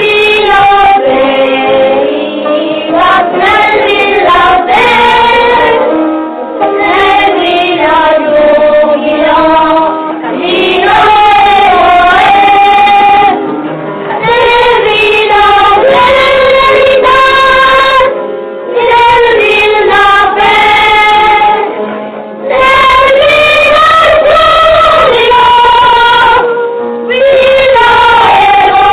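Children singing a song from a school play, in sung phrases of a few seconds each with short breaks for breath between them.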